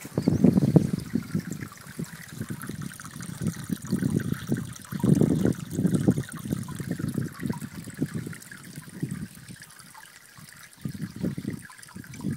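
Iron-rich spring water pouring from a rusty pipe into a shallow basin, splashing and gurgling in uneven surges.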